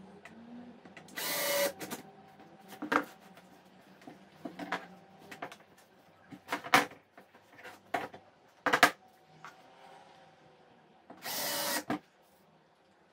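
Cordless drill-driver driving screws into the hinges of a wooden frame: two short bursts of the motor running, one about a second and a half in and one near the end. Between them come sharp clicks and knocks from handling the screws, hinges and tool on the wood.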